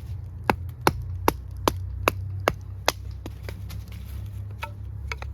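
Batoning: the spine of a 1095 high-carbon steel bushcraft knife struck repeatedly with a baton, driving the blade through a log. Seven sharp, evenly spaced blows come about two and a half a second, followed by a few lighter knocks.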